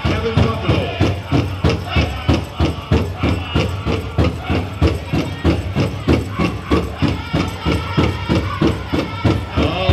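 Powwow drum struck in a steady, fast beat for a chicken-dance song, with singers' voices over it.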